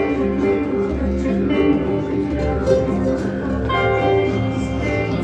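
Ambient music played live in a jam session: layered, held notes over a low drone, with a deeper bass tone coming in near the end.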